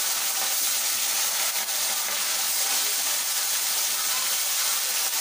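Fish pieces deep-frying in hot oil in a steel kadhai: a steady, hissing sizzle.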